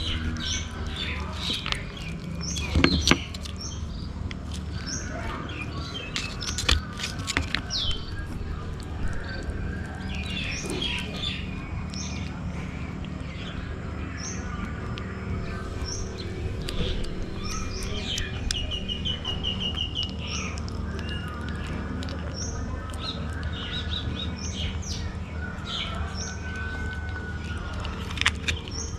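Small birds chirping on and off, short high notes scattered throughout, over a steady low hum. A few sharp knocks come about three and seven seconds in.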